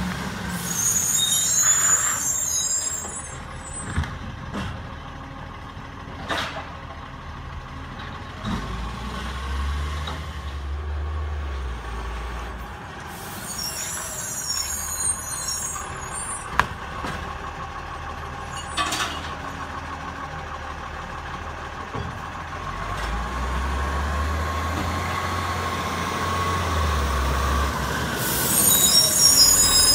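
Iveco ACCO side-loader garbage truck moving stop-start along a street: its diesel engine runs steadily and swells twice as it pulls away, and its air brakes hiss three times, near the start, in the middle and near the end. A few sharp knocks sound along the way.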